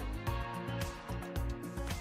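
Background music: a soft instrumental bed of sustained notes over a light beat.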